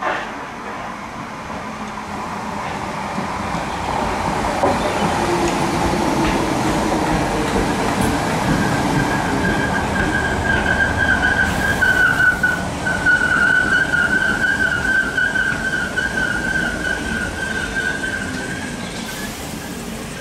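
Electric multiple-unit passenger train running through the station, growing louder over the first few seconds and easing off near the end, with a steady high-pitched whine through the second half.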